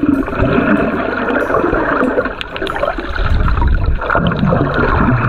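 Muffled underwater bubbling and gurgling as a snorkeler dives down, heard with the microphone below the surface.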